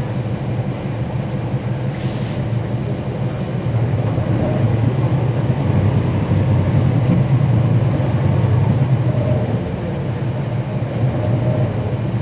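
Cummins ISL9 diesel engine of a 2011 NABI 40-SFW transit bus running with a steady low drone, growing louder from about four seconds in and easing off around ten seconds. A brief faint hiss about two seconds in.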